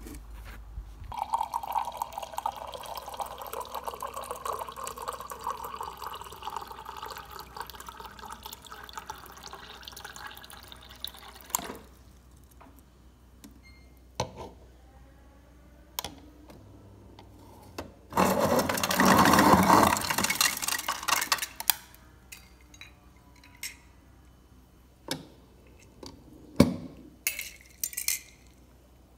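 Refrigerator door dispenser running water into a mug for about ten seconds, then a loud rattling burst of ice cubes dropping into the mug for about three seconds, followed by scattered clinks of a metal utensil stirring in the mug.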